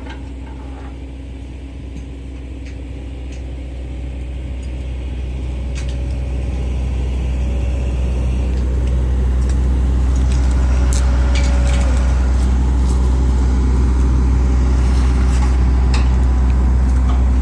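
A heavy engine running steadily, a low rumble that grows louder over the first ten seconds or so and then holds, with a few light knocks and clinks on top.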